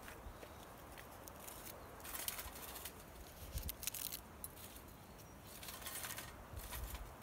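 Several short bursts of crackling and rustling, with soft low thumps under two of them, over a faint steady hiss.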